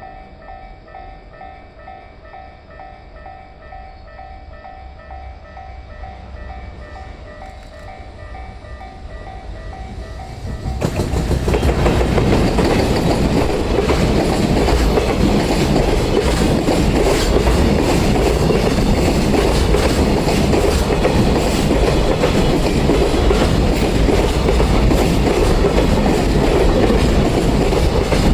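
A Japanese level-crossing warning bell dings in a rapid steady repeat, then about eleven seconds in a freight train hauled by an EF210 electric locomotive arrives and passes close by. The loud clatter of its wheels over the rail joints runs on and drowns the bell.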